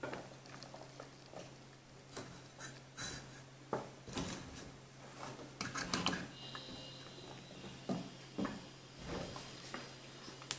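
Faint, scattered taps and light knocks of hands picking floured candied fruit out of a stainless steel bowl and dropping it onto cake batter in an aluminium tube pan, over a steady low hum.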